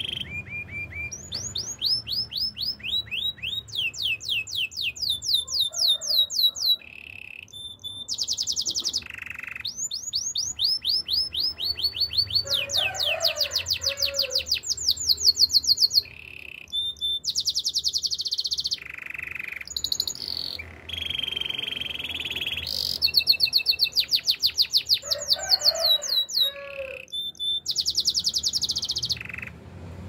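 Canary singing: fast trills of rapidly repeated sweeping notes, switching to a new trill every second or two with short breaks between phrases.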